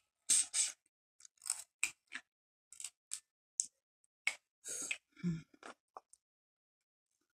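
Shellfish shells cracked and picked apart by hand: a scattered run of short, sharp crackles and snaps, mixed with mouth smacks from eating.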